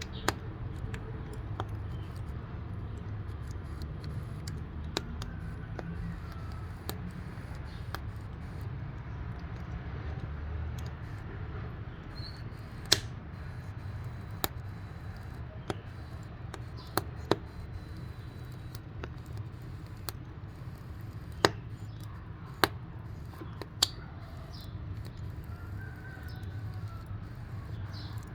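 Firewood burning in a wood-burning cookstove: a steady low rumble with sharp crackles and pops scattered irregularly throughout, a few of them much louder than the rest.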